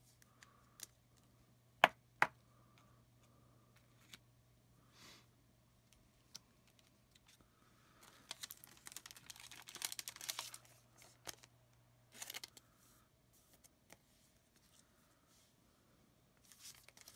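Trading cards and packaging being handled: two sharp clicks about two seconds in, then a few seconds of crinkling of a foil booster-pack wrapper starting about eight seconds in, and a shorter rustle a few seconds later, over a faint steady hum.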